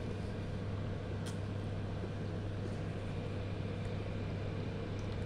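Steady low electrical hum with an even hiss behind it, and a faint click about a second in as the phone is handled.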